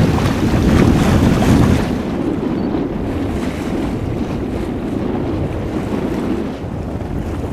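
Wind rumbling on the microphone over the wash of sea water around a boat, heavier for the first two seconds and then steady.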